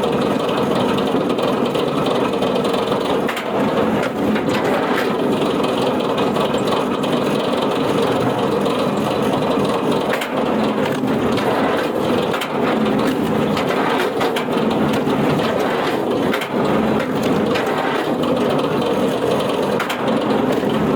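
A wood-processing machine working under load: a steady mechanical drone with continual crunching and cracking of wood.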